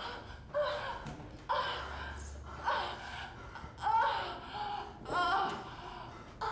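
Short wordless bursts of a woman's voice, roughly one a second, each about half a second long with the pitch sliding up and down.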